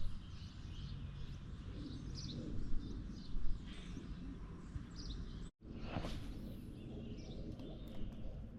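Outdoor pond-side ambience: a few short bird chirps over a low, steady rumble, with a brief break about halfway through.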